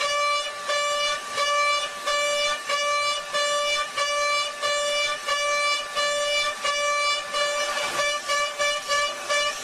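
Background music: a bright, horn-like synthesised note repeated in a steady pulsing beat, about three pulses a second.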